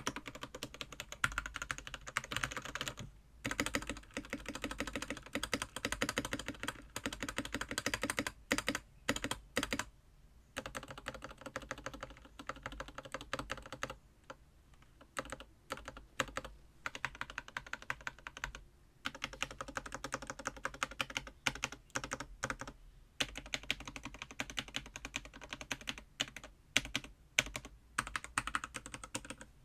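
Typing on a Technieer TKL mechanical keyboard with unlubricated Gateron Milky Yellow linear switches, stock stabilisers and XDA keycaps: fast runs of clacky keystrokes with short pauses, lighter for a few seconds past the middle.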